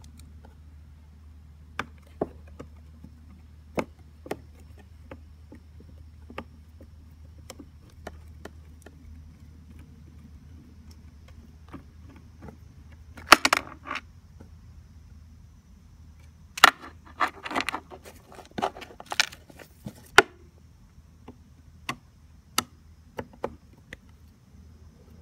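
Screwdriver undoing the screws of a scooter's battery terminals: scattered sharp metal clicks and ticks, with louder bouts of metallic rattling and scraping about 13 seconds in and again from about 17 to 20 seconds.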